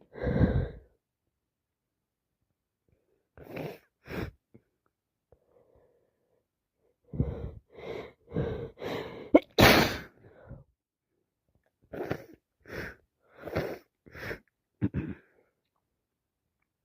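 A woman with a heavy head cold sneezing and sniffing. A run of short gasping breaths builds up to one loud sneeze near the middle, with short sharp sniffs before and after it.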